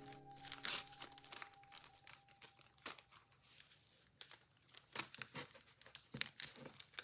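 Paper and plastic packaging crinkling and rustling as small stationery items are handled, in a string of short, irregular crackles.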